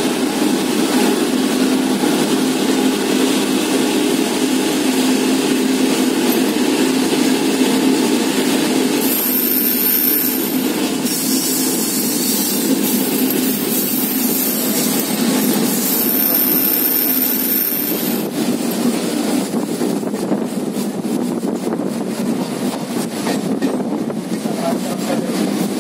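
Passenger train running out of the station, heard from the open coach doorway: a steady rumble of wheels and running gear, with a thin high whine that comes in twice in the middle.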